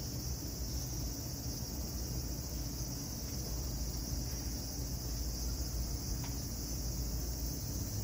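Steady high-pitched drone of insects over a low, even background hum, with one faint tick about six seconds in.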